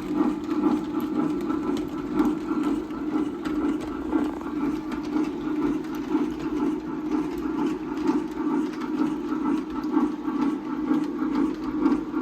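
Lionel AC-9 O-scale model steam locomotive running on the layout track: a steady hum with uneven pulses in loudness, as it makes a test run over a newly installed switch.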